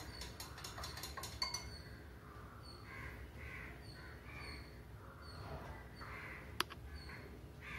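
A stirrer clinks a few times against a drinking glass as it is set in. After that come faint, repeated crow caws, and a single sharp click near the end.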